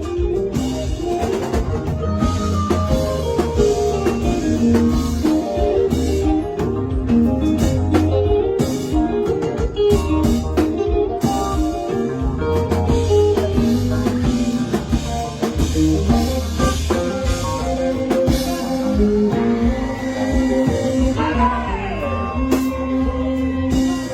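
Band music: a lead guitar playing a solo over bass and a steady drum beat.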